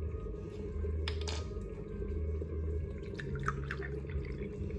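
Liquid poured from a plastic bottle into a small glass, trickling and dripping, with a single sharp click about a second in.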